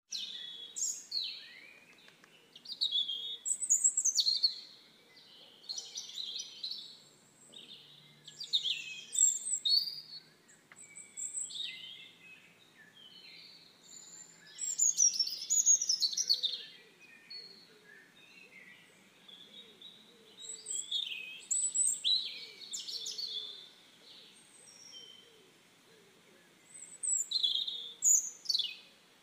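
Songbirds singing in short, high, quick phrases of a second or two, coming every few seconds with pauses between.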